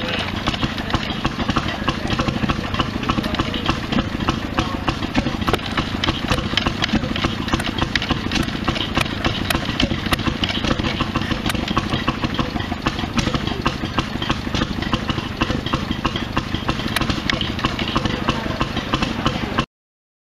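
Antique stationary gas engine running steadily, with a fast run of mechanical clicks over its exhaust. The sound cuts off abruptly near the end.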